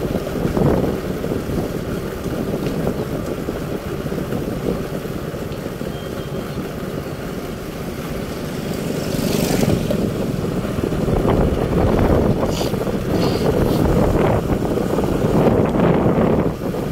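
Steady engine rumble and rushing noise of a moving vehicle, heard while riding, swelling louder about halfway through, with a few brief clicks.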